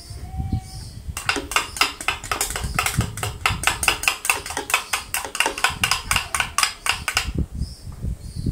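Quick, sharp clinking of a utensil against a container, about five clicks a second, starting about a second in and stopping about a second before the end: the last of the activated wine yeast being scraped and tapped out into the must.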